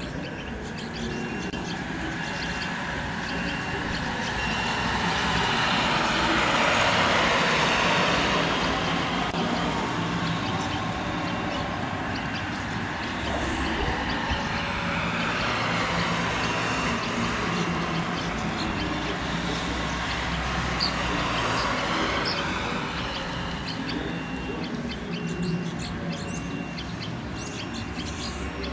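A broad rushing rumble like distant traffic, which swells twice and eases off, with a few faint bird chirps near the end.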